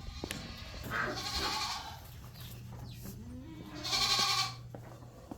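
Dairy goats bleating: two loud calls, one about a second in and another about four seconds in.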